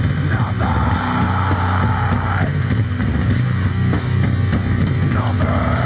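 Rock song with guitar and drums, heavy in the bass, played through a Blaupunkt SL 8715-A2 8 cm speaker whose cone has been patched with glue and nylon fabric.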